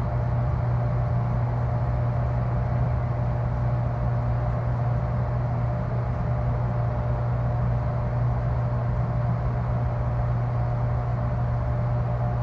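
Steady, deep mechanical drone of a freezer unit: a strong low hum with a faint higher tone and a hiss above it, unchanging throughout.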